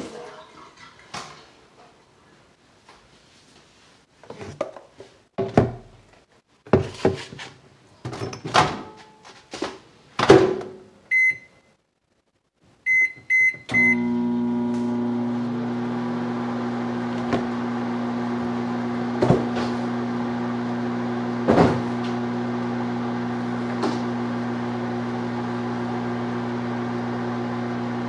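Kitchen clatter of knocks and handled dishes, then a single beep and three quick keypad beeps as a microwave oven is set. The microwave then starts and runs with a steady hum, with a few light knocks over it.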